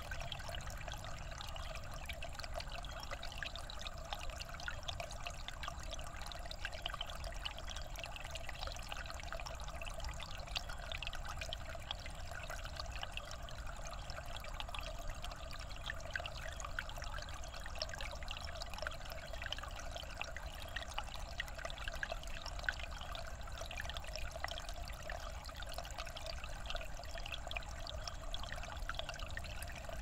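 Shallow creek water trickling and splashing over and between rocks: a steady babble of many small splashes.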